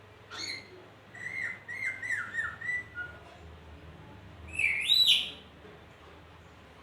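Pet lory (nuri parrot) calling with whistled notes. A short call opens, then comes a quick run of five or six short falling whistles, and about five seconds in a louder whistle that rises and then falls.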